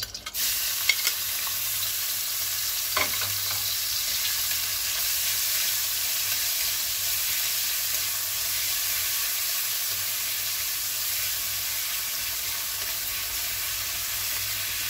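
Crushed ginger, garlic and green chilli hitting hot oil in a kadai and frying with a steady sizzle that starts suddenly. A steel spatula clicks against the pan a few times in the first three seconds while it stirs.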